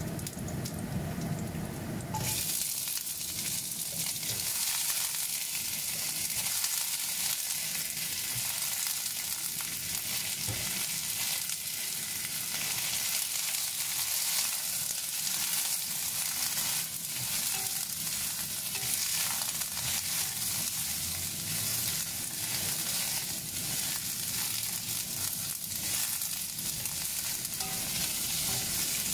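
Okra pods stir-frying in hot oil in a nonstick wok: the sizzling jumps up sharply about two seconds in as the pods go into the oil, then carries on steadily while a spatula stirs and tosses them, with light scrapes against the pan.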